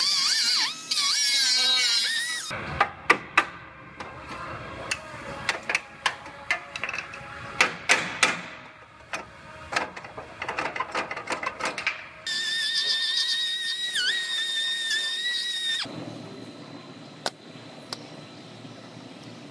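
Air cut-off tool whining as its abrasive wheel cuts through a steel car frame rail. A stretch of irregular sharp metal knocks and clanks follows, then the cut-off tool whines again for a few seconds, its pitch dipping briefly as the wheel bites.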